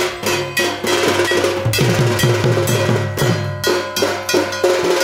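Dhak drums beating in a steady rhythm, each low stroke dropping in pitch, with a metal gong or bell ringing over them: Durga Puja festival drumming.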